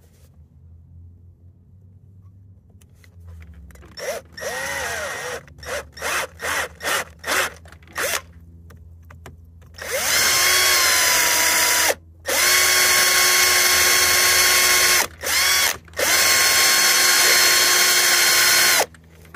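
Cordless drill drilling out a rivet in a metal door hinge: first a string of short trigger pulses, then a steady high whine at full speed for about nine seconds, broken by three brief stops. The bits are not very good, so the drill is slow to cut through the rivet.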